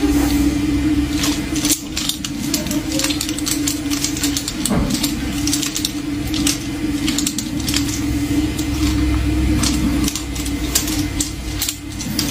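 Articulated plastic finger-claw extensions clicking and clacking against each other as the fingers flex, many quick irregular clicks over a steady machine hum.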